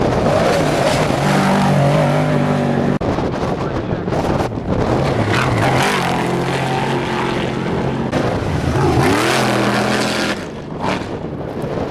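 Trophy truck engines running hard as the trucks race past, under a rushing noise. The engine pitch steps up and down several times, and swoops about nine seconds in.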